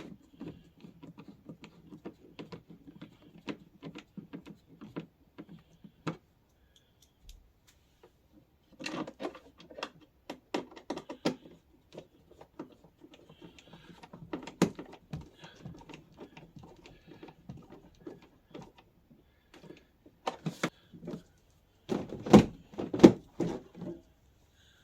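Irregular clicks and knocks of hands fitting a plastic seat onto a kids' ride-on car and screwing it in place, with a few louder thunks near the end.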